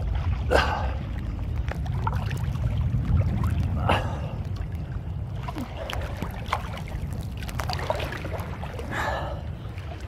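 Sea water sloshing and splashing around a camera held at the water's surface during a swim, over a steady low rumble of waves and wind on the microphone. Sharper splashes come about half a second in, at about four seconds and near the end.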